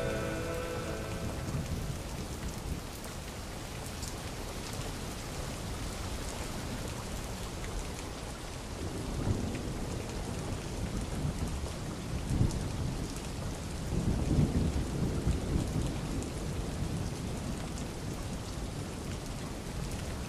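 Steady rain with low rolls of thunder swelling up several times, the strongest about two-thirds of the way through. A music chord dies away at the start.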